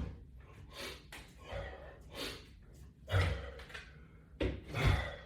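A man breathing hard through exercise exertion, a series of forceful breathy exhales about once a second, louder in the second half.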